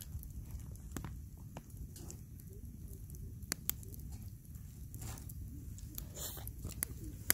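Steady low wind rumble on the microphone, with scattered light clicks and taps.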